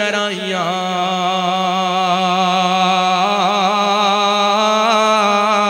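A man's voice chanting a Punjabi naat line, holding one long note for several seconds with small ripples of ornament in the pitch.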